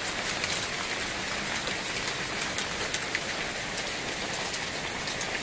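Small hail pattering down steadily: a dense hiss full of sharp little ticks as the hailstones strike.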